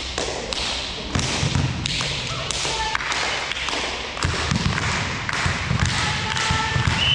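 Volleyball match play in a sports hall: repeated thuds and taps of the ball being struck and players' feet landing on the court floor, with a few short high squeaks.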